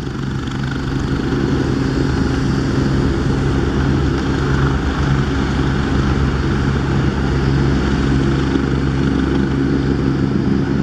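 Agusta A109 twin-turbine helicopter hover-taxiing: a steady rotor and turbine drone with a low hum running under it.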